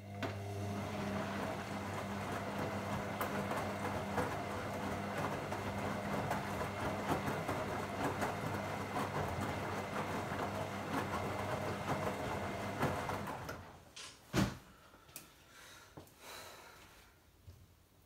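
Beko WM5122S washing machine drum turning during the rinse, the motor humming and the water and curtains sloshing and tumbling. The motor stops about thirteen seconds in, and a thump and a few light knocks follow as the drum comes to rest.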